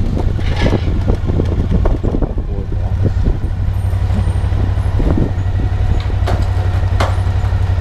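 Motorcycle engine running at a steady low pitch, with a sharp click about seven seconds in.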